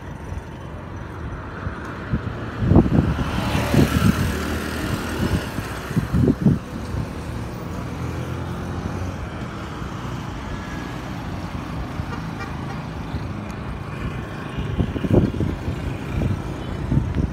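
Road traffic going by on a busy road: a steady hum of passing vehicles, with a louder one passing about three to four seconds in. A few low bumps stand out near the start, around six seconds in and near the end.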